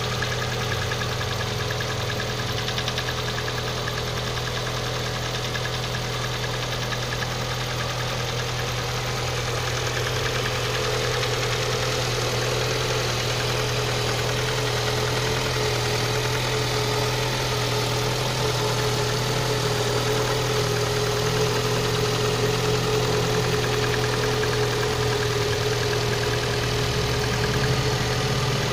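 VAZ-11194 1.4-litre 16-valve four-cylinder engine idling cold, with a steady rhythmic knock over the engine note.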